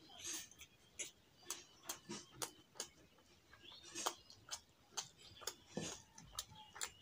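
Close-up eating sounds of a man eating rice and curry by hand: irregular wet chewing and lip-smacking clicks, with fingers squishing and mixing rice on a steel plate.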